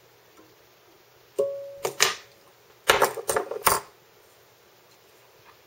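Small fly-tying tools clicking and tapping against the vise and bench: a short metallic ping about a second and a half in, two clicks soon after, then a quick run of clicks around the three-second mark.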